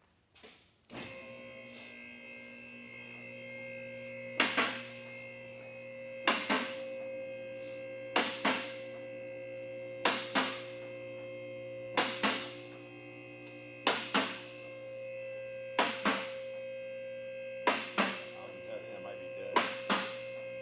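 A vehicle lift's electric pump motor humming steadily as it raises the car, with sharp clacks about every two seconds as the lift's safety locks pass each notch.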